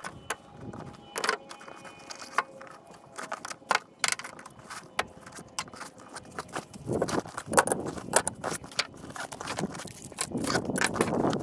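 Metal hand tools clinking and clattering as they are set down one after another on a steel diamond-plate truck bed, some with a brief metallic ring. From about seven seconds in, rustling as hands rummage through a canvas tool bag.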